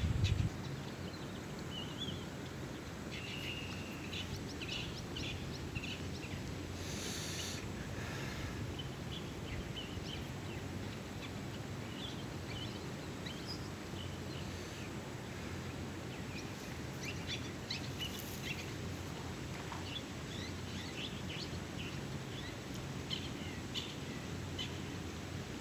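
Birds chirping in short, scattered calls over a steady low outdoor background rumble.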